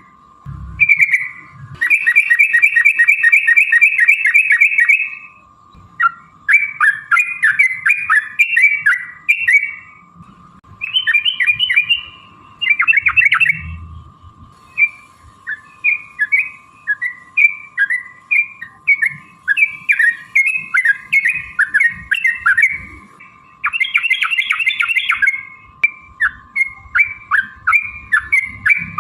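Yellow-vented bulbul (trucukan) song: quick bubbly chattering phrases repeated with short gaps, and a long rapid trill of about a dozen notes a second near the start. A faint steady tone runs underneath.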